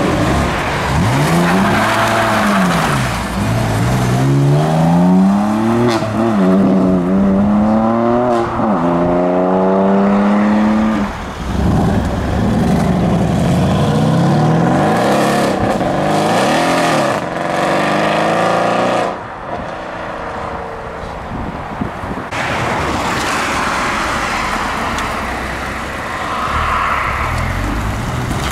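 Ferrari 458's V8 revving hard as the car accelerates away, its pitch climbing and dropping back at each of several quick upshifts. Then a Mercedes E63 AMG's V8 runs loud under acceleration until it cuts off abruptly about two-thirds of the way in, and quieter car engine noise follows.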